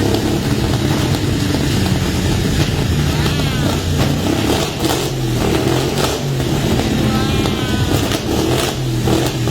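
1971 GMC C10 engine running steadily on its first start after sitting two years, its pitch shifting slightly.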